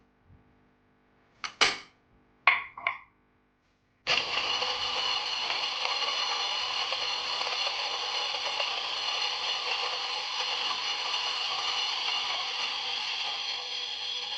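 Two short clatters, then about four seconds in the CAFOVO 03 electric coffee grinder's 100-watt DC motor starts abruptly and runs steadily, grinding a 5.9 g single dose of coffee beans with a steady whir and whine, easing slightly near the end.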